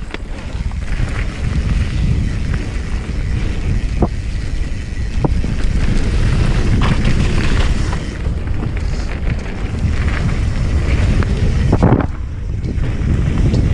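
Wind rushing over the microphone during a fast mountain-bike descent of a gravel trail, with tyre noise underneath and a few short knocks and rattles from the bike going over bumps.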